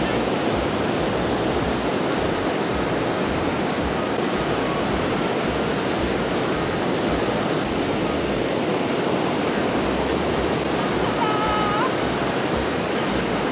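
Ocean surf breaking on the beach, a steady unbroken rush.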